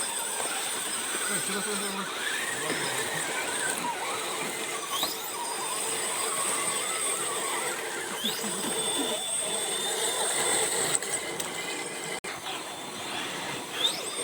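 Electric motor of an RC rock crawler whining, with a few short rising squeals as it speeds up.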